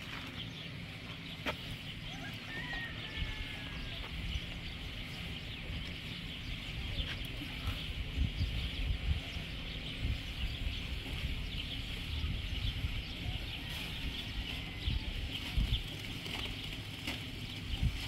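Outdoor ambience: a steady high chorus of chirping birds over a low, uneven rumble, with a single drawn-out bird call a few seconds in and a few faint clicks.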